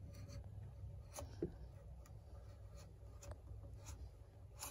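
Utility knife blade scraping along a peeled log in short, faint scratching strokes, scoring the scribe line for a lock notch. A brief squeak about a second and a half in.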